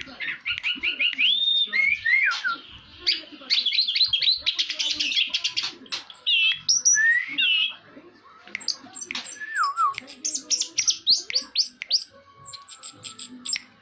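Orange-headed thrush (anis merah) singing a fast, varied song of quick chirps, clear whistles and downward-sliding notes, broken by a few short pauses.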